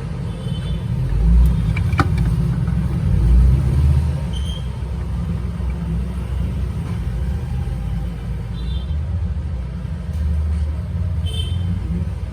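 Steady low rumble that swells and eases a few times, with a single sharp click about two seconds in and a few faint, short high chirps.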